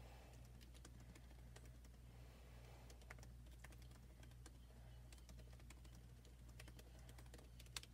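Near silence: a faint low hum with faint, irregular clicking scattered through it.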